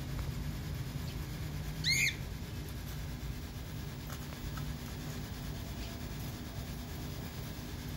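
One short bird chirp about two seconds in, rising and falling in pitch, over a steady low hum.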